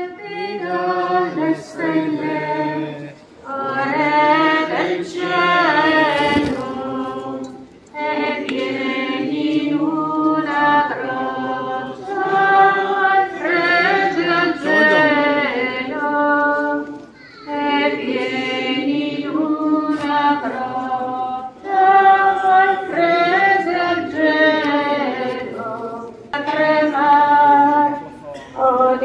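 Voices singing a hymn together, in sung phrases a few seconds long with short pauses for breath between them.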